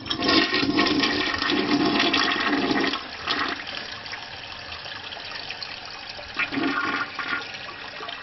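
Toilet flushing: a loud rush of water for about three seconds, then the water runs on more quietly as the bowl empties and refills, with a short swell near the end.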